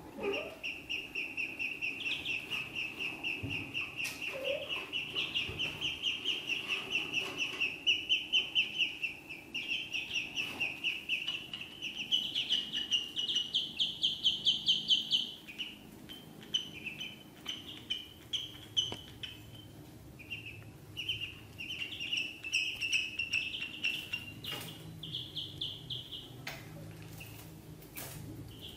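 Ducklings peeping: a steady run of high peeps, about three a second, that grows louder and rises a little in pitch about halfway through, then breaks off into sparser, scattered peeps.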